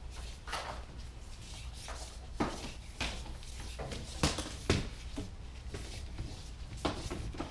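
12-2 Romex cable being pulled through the wall cavity in hand-over-hand tugs: irregular short scrapes and rustles, about one a second.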